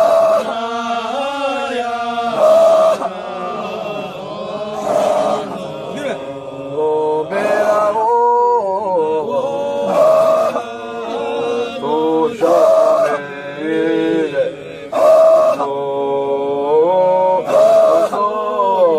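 Voices chanting a Sufi dhikr (digri): a repeated sung line that rises and falls, with a strong accent roughly every two and a half seconds.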